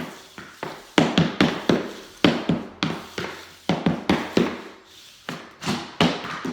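Soft floor hockey puck being knocked and slid about on a rough panel: a quick, uneven run of sharp taps and knocks, about three a second.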